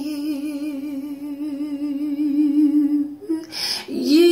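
A woman's unaccompanied voice holds one long hummed note with a gentle vibrato for about three seconds. A breath follows, then her voice slides up into the next note.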